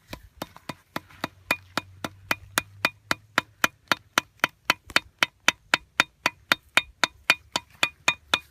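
Sharp, wooden-sounding knocks in a steady, even rhythm, about three and a half a second, each with a short pitched ring, like a wood block being struck.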